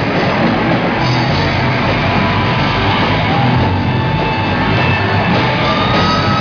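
Live metal band playing loud, with electric guitar and drums in an unbroken wall of sound.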